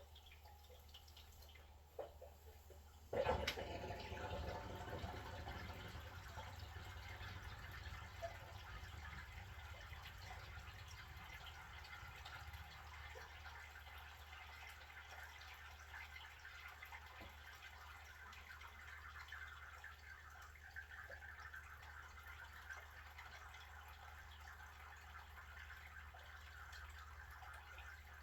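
Water being drained from a 50-gallon electric water heater, trickling and splashing steadily into a drain. A sharp knock about three seconds in sets off a stronger flow that slowly eases.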